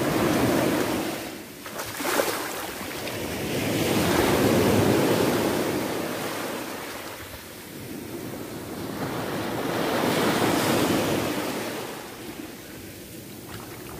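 Sea waves washing up the shore, the surf rising and easing in three slow surges about five seconds apart.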